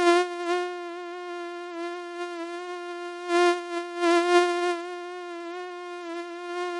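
Mosquito whine: a steady high-pitched buzz that wavers slightly in pitch and swells louder twice in the middle, as if the mosquito is passing close by.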